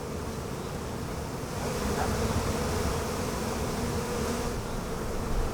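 Honeybees from a rooftop colony buzzing in a steady hum, swelling louder about a second and a half in.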